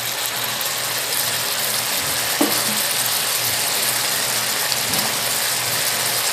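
Tuna and mushrooms sizzling as they sauté in a frying pan, a steady hiss, with two brief knocks about two and a half and five seconds in.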